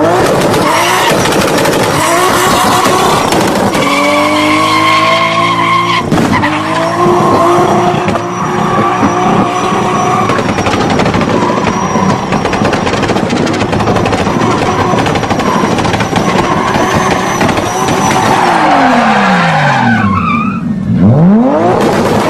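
Turbocharged car engine revving hard, its pitch sweeping down and up several times over a dense rush of noise.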